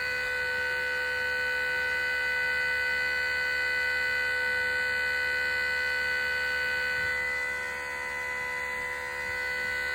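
Outdoor warning siren sounding a steady tone, a held chord of several stacked pitches. It fades slightly about three-quarters of the way through and then comes back.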